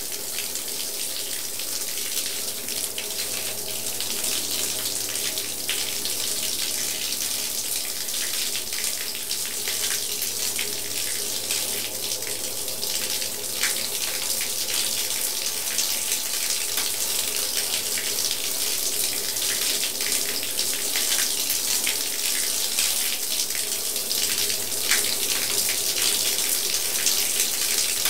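Water running steadily from a tap into a bathtub, a continuous hiss, with a faint steady hum beneath it.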